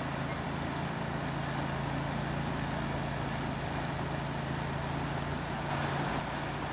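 Steady low hum of a motor running somewhere nearby, over an even background hiss; the pitched drone stops near the end.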